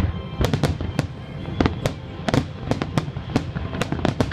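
Aerial fireworks shells bursting in a rapid, irregular string of sharp bangs and cracks, roughly three to four a second, over a low rumble, with music underneath.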